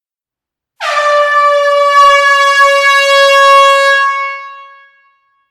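Air horn giving one long blast of about four seconds at a steady pitch, fading away at the end.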